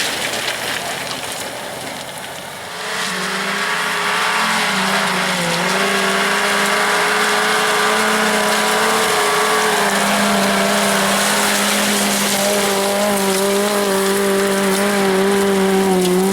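Off-road 4x4's engine revved up about three seconds in and held flat out at high revs for a long climb up loose stone, dipping briefly once. A steady hiss of tyres on loose stone runs underneath.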